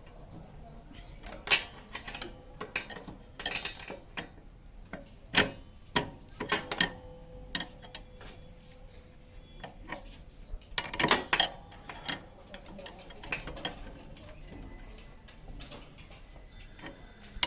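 Irregular metallic clinks and knocks of hand tools and scooter parts being handled during repair work, with a quick cluster of clatter about two-thirds of the way through.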